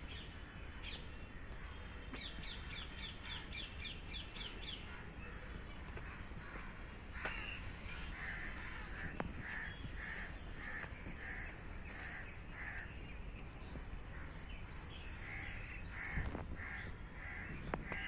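Birds calling outdoors. A quick run of high chirps comes first; then a bird repeats a harsh call about one and a half times a second in two bouts, over a steady low background rumble.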